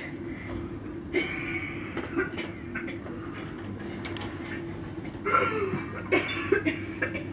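Played-back soundscape of steerage passengers aboard the ship, heard over a steady low hum: indistinct voices and short human noises such as chuckles and a cough, in two spells, about a second in and again past the five-second mark.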